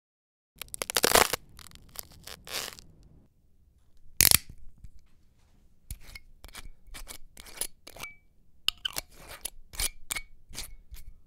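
Small metal parts of a Stirling engine kit clicking and clinking as they are handled and fitted together by hand: a short rattle about half a second in, a sharp click near four seconds, then a run of about a dozen light clicks, some with a brief metallic ring.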